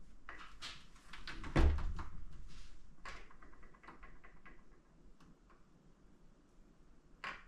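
Metal engine parts being handled on a work table: a quick run of clinks and scrapes, one heavy thud about one and a half seconds in, scattered lighter clicks, and one last sharp knock near the end.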